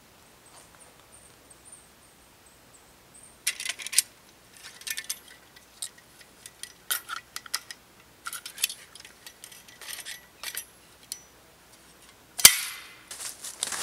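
Metal clicks and clinks as a folding saw is opened out and set up by hand, starting a few seconds in, with one loud sharp snap near the end.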